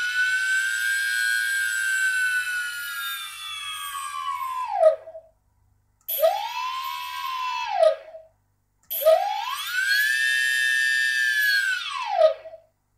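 Hobby brushless outrunner motor, driven through an ESC, whining as its speed is stepped up and down. The pitch falls as it spins down and stops about five seconds in. It then spins up and down twice more, rising in pitch each time, with short silences between.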